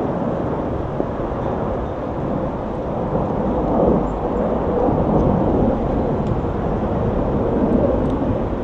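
Steady low rumbling noise with no pitch or rhythm, the kind made by wind or rain on an outdoor microphone.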